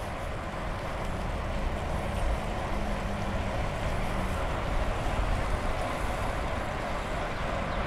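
Steady traffic noise from cars on the adjacent multi-lane road, heard from a moving bicycle, with wind rumbling on the microphone.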